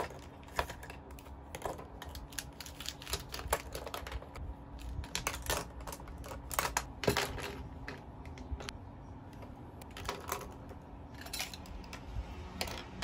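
Plastic pens and markers clicking and clattering as they are pulled out of a metal mesh pen holder and set down one by one on a desk, in irregular taps, with a faint steady hum underneath.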